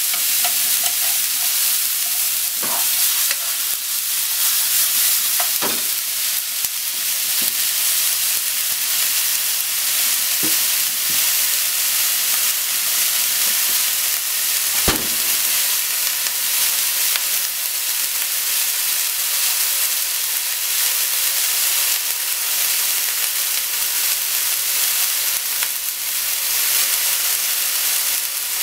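Onion and kakinoki-take (wild enoki) mushrooms sizzling as they fry in a nonstick frying pan, a steady hiss. A few sharp knocks sound in the first half, the loudest about halfway through.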